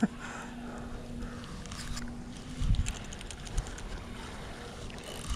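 Spinning reel being cranked steadily on the retrieve of a snagging rig, a faint even whir from its gears, with a brief gust of wind on the microphone about halfway through.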